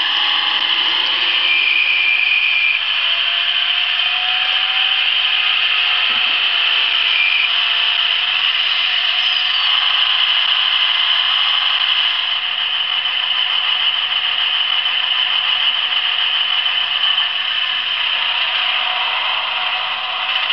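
Class 153 diesel multiple unit engine sound from a DC Kits DCC sound decoder, played through a model railway loco's small loudspeaker. It runs steady and thin, without low bass, and eases slightly about twelve seconds in.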